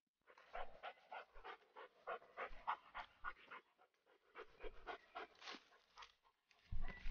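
A dog panting rapidly and close, about three breaths a second, with a short pause midway. A low thump comes near the end.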